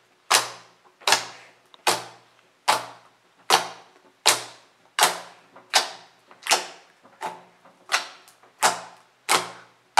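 Pink glitter slime being kneaded and squeezed by hand: a regular run of wet squelches and pops, about one every three-quarters of a second.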